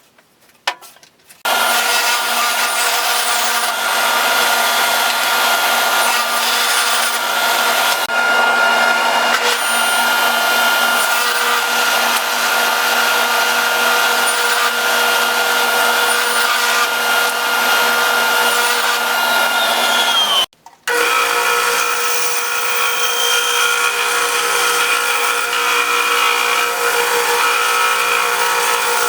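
Power saw ripping 1/2-inch plywood into strips, running with a steady whine. It stops abruptly about 20 seconds in, then starts again with a slightly different pitch.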